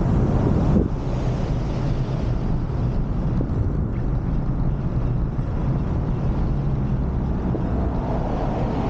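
Moped engine running steadily under way, with wind rushing over the microphone; the sound eases a little about a second in.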